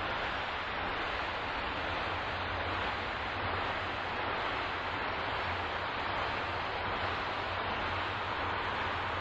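Steady, unbroken rushing noise: the camera's own recording of strong wind and rain, processed into a special-effect sound.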